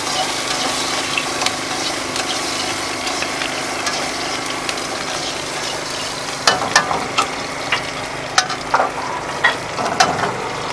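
Vegetables sizzling in hot oil in a steel wok while a metal ladle stirs them, with a run of sharp clanks of the ladle against the wok from about six seconds in.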